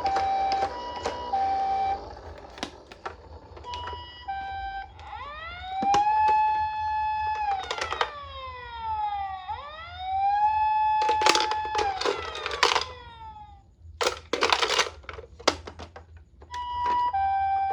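Toy ambulance minicar's siren sound: a two-tone hi-lo siren at first, then a wailing tone that rises, holds and falls twice, then the two-tone siren again near the end. Clicks and rattling clatter sound between and over the siren.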